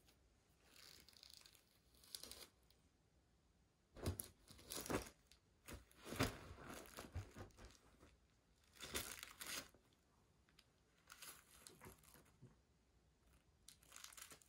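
Bed sheets rustling and crumpling in several short bursts as a Ragdoll cat pounces on and digs into the fabric.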